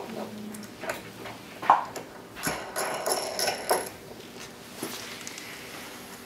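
Wrench and nut clinking against a steel threaded rod as the rod is fitted and tightened: a handful of sharp metallic clicks and ringing taps, thickest about three to four seconds in, then sparser.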